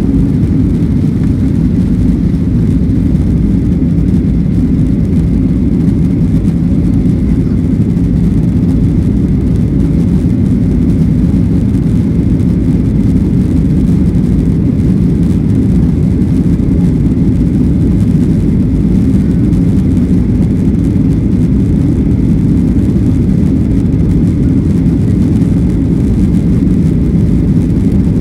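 Steady low rumble of a Boeing 737-800's jet engines and airflow, heard inside the airliner's cabin during takeoff. The noise holds level throughout, with no rise or fall.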